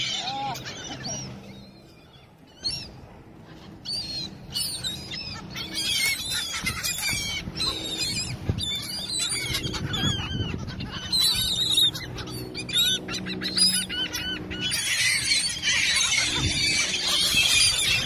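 A large flock of gulls calling: many short, overlapping squealing calls that thin out briefly a couple of seconds in and build to a dense chorus near the end.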